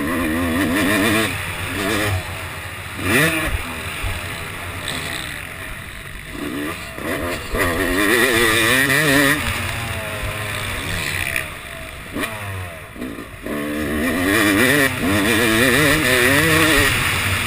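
Yamaha YZ250 two-stroke motocross engine revving hard under the rider, its pitch wavering rapidly up and down with the throttle, easing off twice and then pulling again.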